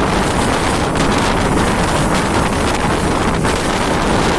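A Mumbai local train running at speed, heard from inside the coach: a loud, steady rush of wind over the microphone with the rumble of the train on the track beneath it.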